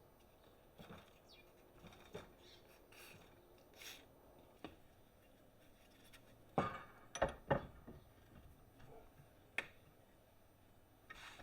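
Scattered light clicks and knocks of steel parts and tools being handled, with three louder knocks in quick succession a little past halfway and one more sharp knock near the end.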